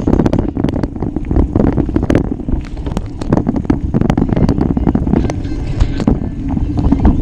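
Wind buffeting the microphone in a heavy low rumble, with frequent sharp, irregular clicks and rattles from a bicycle jolting along a rough trail.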